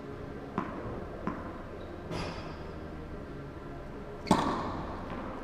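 Tennis racket striking the ball on a serve about four seconds in: a sharp pop that echoes in the hall. Two faint knocks come in the first second and a half.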